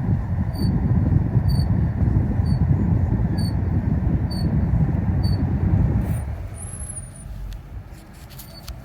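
A car driving with a low rumble, and a short high-pitched squeak repeating about every three quarters of a second. The rumble drops away about six seconds in.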